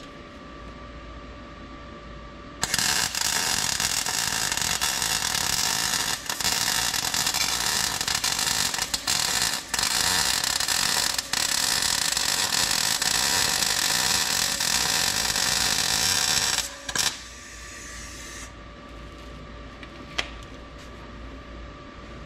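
MIG welding arc crackling and hissing steadily through one long weld bead on a steel bracket. It starts a few seconds in, breaks briefly about three times, and stops after about fourteen seconds, with one short burst just after.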